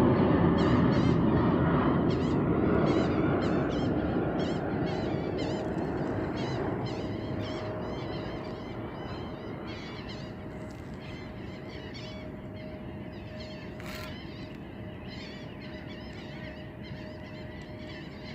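Many small birds chirping and calling at once in a dense evening chorus, short sharp chirps repeated all through. A low rumble fades out under them over the first several seconds.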